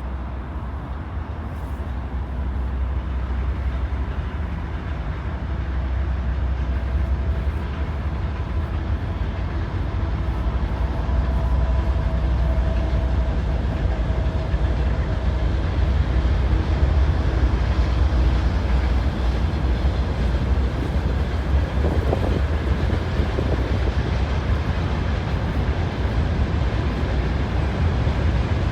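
A passing train, a steady low rumble with rail noise that slowly grows louder over the first half and then holds.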